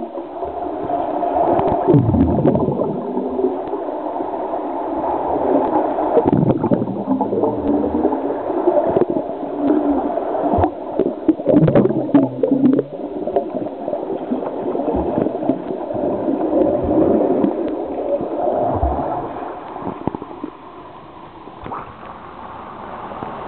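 Muffled underwater pool noise: churning water and bubbles from a freestyle swimmer's strokes and kicks, heard through a submerged camera. It grows louder, with sharp clicks and splashes, about halfway through as the swimmer strokes close past, and quietens near the end.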